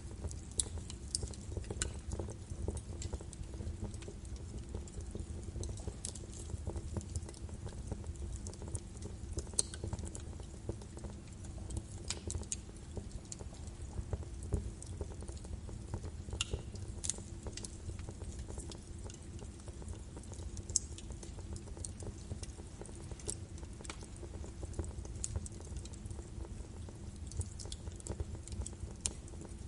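Birch wood fire burning in a fireplace, crackling with many irregular sharp snaps and pops over a low, steady rumble of the flames.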